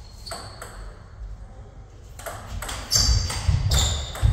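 Table tennis rally: the ball clicking sharply off the paddles and the table, several hits spaced unevenly, getting louder and busier about three seconds in.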